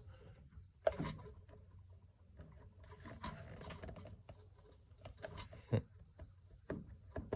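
Scattered light clicks and knocks of metal and plastic parts being handled as the trimmer head on a string trimmer's gear head is worked and tightened, the sharpest about a second in and again toward the end. Faint short bird chirps come through in the background.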